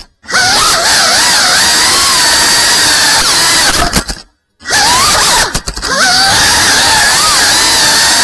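Geprc Cinelog FPV cinewhoop's brushless motors and ducted propellers whining, the pitch rising and falling as the throttle changes. The sound cuts out completely twice, briefly at the start and for about half a second around four seconds in.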